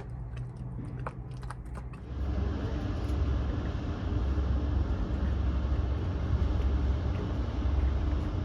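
A low hum with a few scattered clicks, then about two seconds in a small dinghy outboard motor comes in loud and steady. It runs underway, its low rumble mixed with wind and water rushing.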